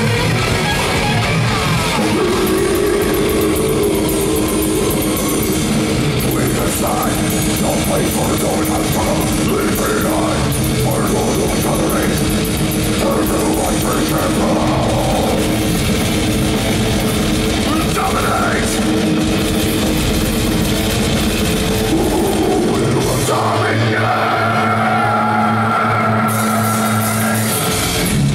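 Death metal band playing live through a club PA: distorted electric guitars, bass and drums. Near the end the drums and bass drop out for about four seconds, leaving held guitar notes, then the full band crashes back in.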